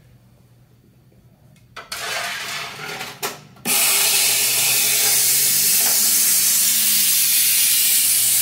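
Air-powered cavity protection spray gun hissing as it sprays through a long wand into a car's steel headlight pod. A softer, broken spray starts about two seconds in, then a loud, steady spray runs from about four seconds in.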